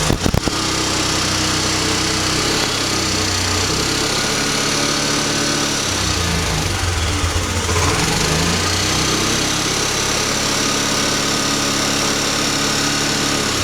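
Motorcycle engine running, its pitch rising and falling a few times as the throttle is opened and closed. A few sharp clicks come at the very start.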